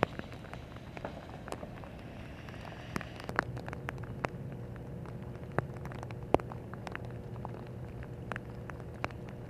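Rain falling, with irregular sharp ticks of drops striking close by over a low steady rumble; the higher hiss thins out about three seconds in.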